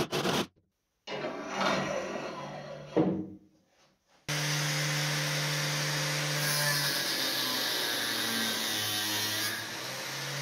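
A power saw starts suddenly about four seconds in and runs steadily with a low hum. For about three seconds near the end the blade cuts through a grill bar with a loud hiss, and the motor's pitch drops under the load and then comes back up as the cut ends. Before it starts there is a couple of seconds of shorter noisy handling or scraping.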